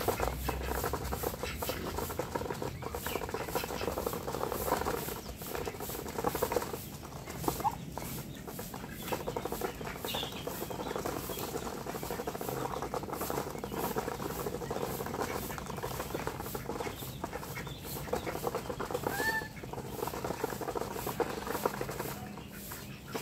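Ducks and geese feeding from a tray: a dense, rapid patter of bills pecking and dabbling at the feed, with a short call or two from the birds.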